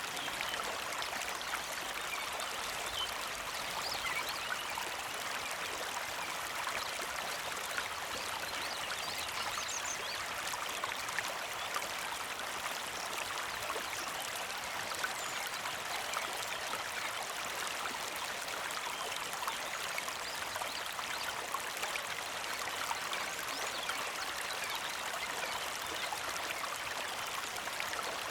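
Small mountain creek flowing and trickling steadily: a constant watery hiss full of tiny splashes.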